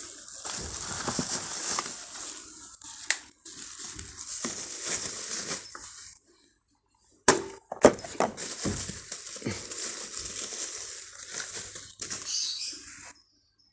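Stick (MMA) welding arc powered by a Lakoni Falcon 160E DC inverter welder, crackling with sharp snaps. It breaks off about six seconds in, is struck again with loud pops a second later, and cuts off near the end.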